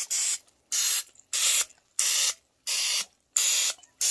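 Aerosol nonstick cooking spray hissing in a series of short squirts, about six or seven, each roughly half a second long with brief gaps, greasing the cups of a muffin pan.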